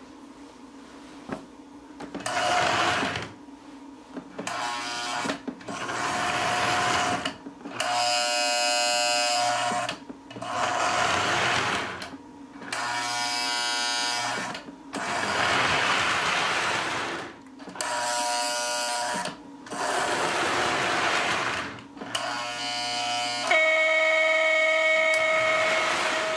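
Lionel 2383 Santa Fe F-3 diesel model locomotive running, its electric motor humming steadily, while its buzzing horn is sounded in repeated short blasts of a second or two each.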